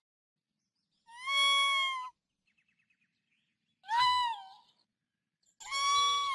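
Raccoon calling: three separate high-pitched cries, each a second or less long, with silence between them.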